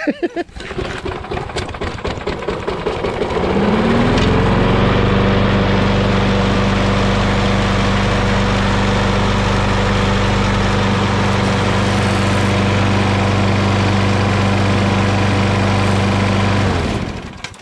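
Briggs & Stratton Quantum single-cylinder mower engine catching and running roughly for a few seconds, then rising in pitch and settling into a steady run, until it is shut off near the end and winds down. The engine has just been cleared of an oil hydrolock and is burning oil out of its muffler.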